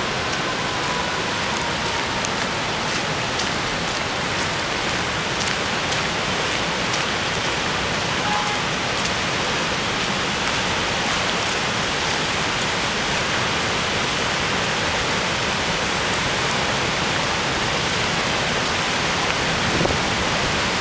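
Steady, even hiss of water, unbroken throughout.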